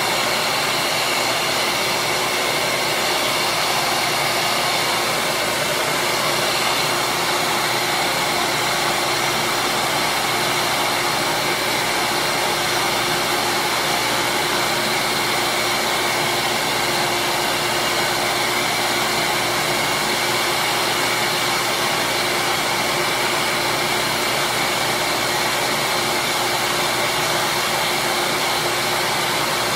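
Bench grinder running steadily, a constant motor whir with a few fixed tones over a hiss, as a small plastic curling-shoe slider is held to its wheel for shaping.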